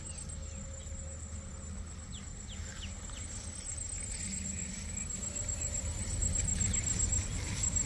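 A steady high-pitched insect trill, over a low rumble of wind on the microphone. A few faint short chirps come about two to three seconds in.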